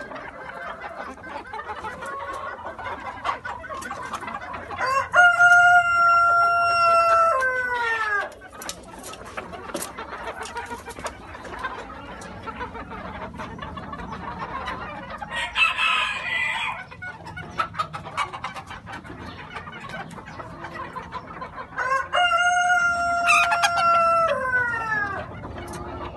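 A flock of splash Cochin bantam chickens clucking and murmuring, with a rooster crowing twice: long held crows that drop in pitch at the end, about five seconds in and again near the end. A shorter, rougher call comes midway.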